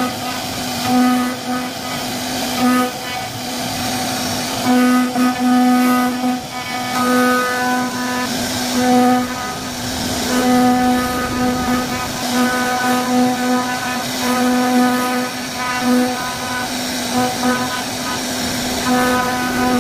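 CNC wood-carving machine running: a pitched mechanical whine that starts and stops every second or so as the machine moves, over a continuous rough cutting noise.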